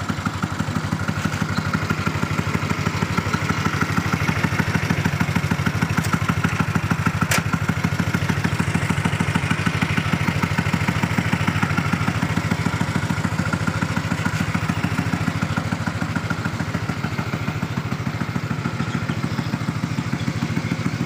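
Honda Revo single-cylinder motorcycle engine in a homemade mini truck, running steadily at idle to charge a newly fitted battery. One sharp click about seven seconds in.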